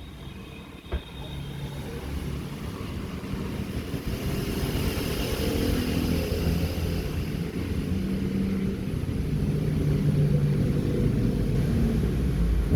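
Low rumble of a motor vehicle's engine, slowly growing louder over several seconds, picked up through a wifi security camera's built-in microphone.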